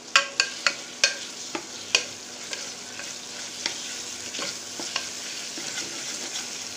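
Metal ladle clinking and scraping against the pot of a pressure cooker while stirring onions and tomatoes frying in oil, over a steady sizzle. The clinks come quickly in the first two seconds, then more sparsely.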